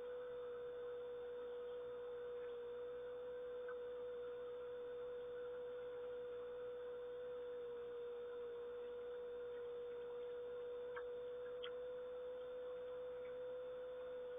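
A steady hum at one unchanging pitch, with a few faint short ticks about eleven seconds in.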